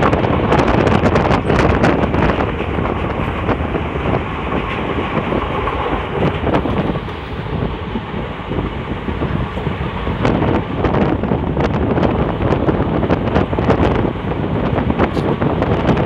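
Train running on the rails with a steady rumble and rapid clatter of wheels, easing a little for a few seconds about halfway through.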